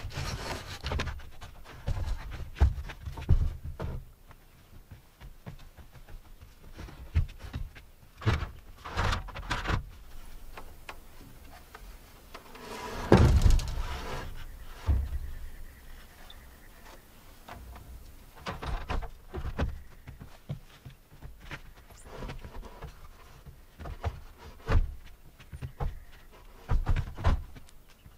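Irregular wooden knocks and thumps from work on roof trusses, the loudest about thirteen seconds in.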